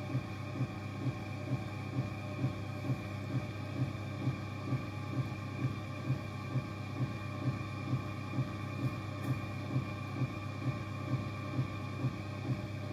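Potter's wheel turning under a clay jar being thrown: a steady low hum with a regular thump a little over twice a second.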